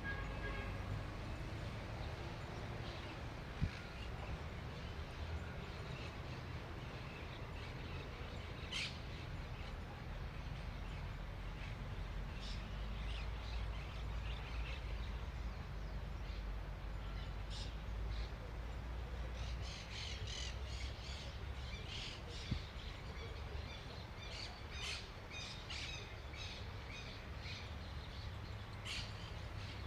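Birds calling outdoors in short, sharp bursts, thickest in a cluster about two-thirds of the way in, over a steady low rumble.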